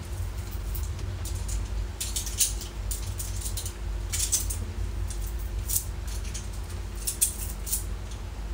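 Steady low rumble with a faint hum, and scattered short, faint rustles and clicks every second or so.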